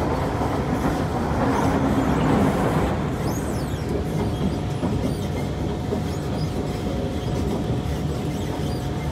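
Kawasaki C151 MRT train running along the track, heard from on board: a steady rumble of wheels on rail with a faint steady tone above it.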